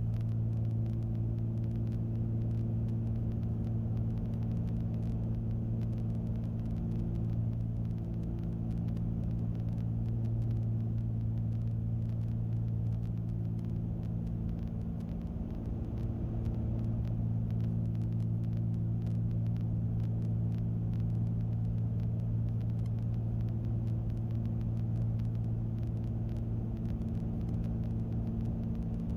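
The twin piston engines and propellers of a Cessna 310 make a steady, deep drone, heard from inside the cockpit while the plane flies the landing pattern with its gear down. The drone dips and wavers briefly about halfway through.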